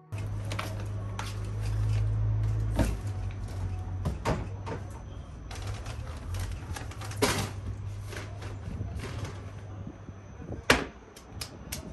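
Scattered knocks and clicks over a steady low hum, with the sharpest knock near the end.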